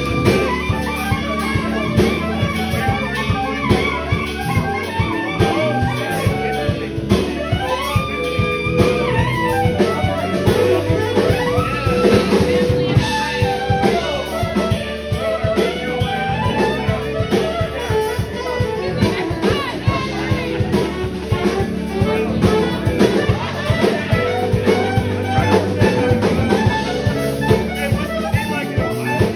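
Live jazz band: a saxophone carries a gliding melodic line over electric bass and a drum kit.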